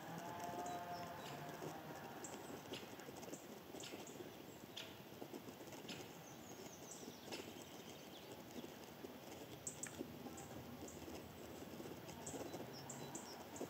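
Irregular light ticks and rustles in dry leaf litter as a black woodpecker forages on the forest floor.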